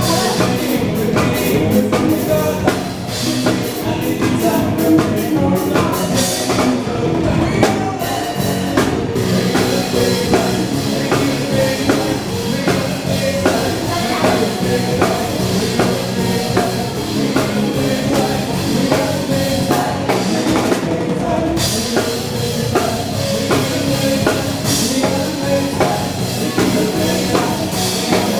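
A band playing dance music, led by a drum kit with a steady bass-drum beat, and singing at times.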